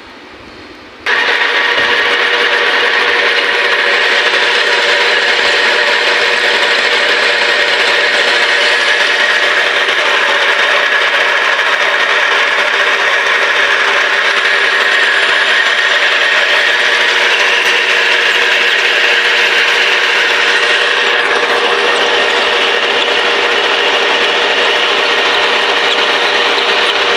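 Metal lathe taking a cut: a loud, steady machining noise with a few held tones, starting abruptly about a second in.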